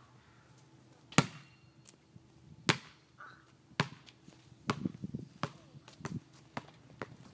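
A basketball strikes hard twice, then bounces on the asphalt, the bounces coming quicker and fainter as it settles.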